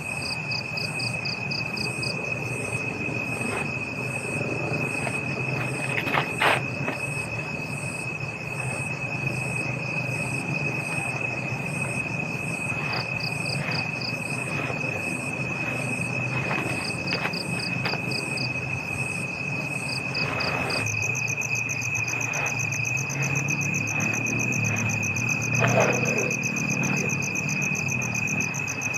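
Forest insects chirring: a steady high drone with rhythmic pulsing chirps above it. A brief knock stands out about six seconds in and again near the end.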